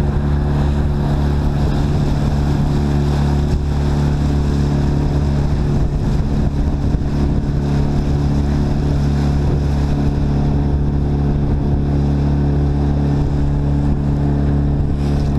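Outboard motor of a small fishing boat running steadily at cruising speed, with water rushing along the hull.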